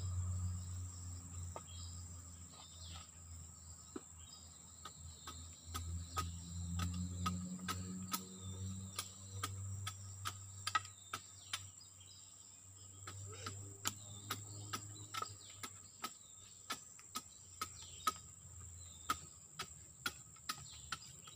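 Steady high insect drone with a run of sharp, irregular wooden clicks and knocks as pieces of wood are worked by hand, coming faster in the second half. A low hum rises and fades underneath.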